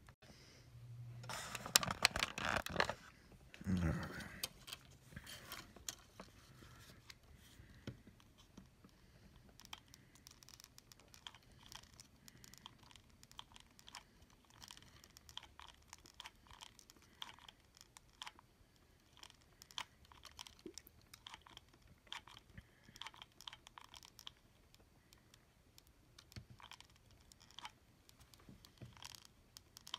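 Hands handling small electronic parts and wires at a workbench: a louder rustling scrape and a soft knock near the start, then many small scattered clicks and ticks.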